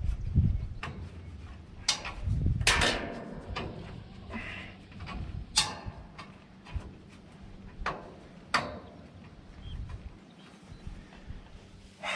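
Scattered sharp metal clicks and knocks from hand tools on a baler's bolted parts as they are worked loose, a few seconds apart, over low handling rumble.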